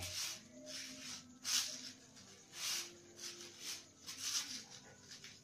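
Plastic raffia strands rustling and crinkling as they are twisted and pulled tight by hand, in about seven short swishes.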